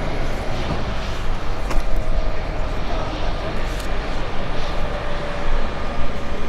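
General Electric CF34-10E turbofan engines of an Embraer 195 airliner landing: a steady jet rumble with a faint engine whine over it.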